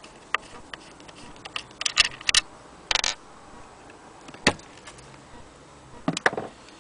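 Scattered metallic clicks and knocks from an antique Frister & Rossmann hand-crank sewing machine being handled, its parts and wooden base touched and moved. The clicks cluster about two seconds in and again near the end, with a short scrape about three seconds in.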